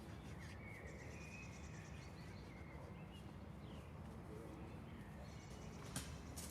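Faint outdoor ambience with a steady low rumble and a few soft bird chirps, then a couple of sharp knocks near the end.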